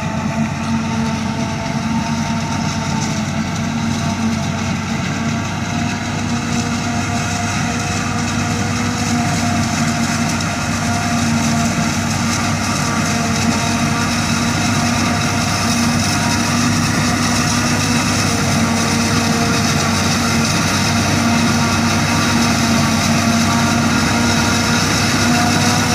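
Farm machinery running steadily during corn silage harvesting: a heavy engine hum with steady whining tones over it, slowly getting louder.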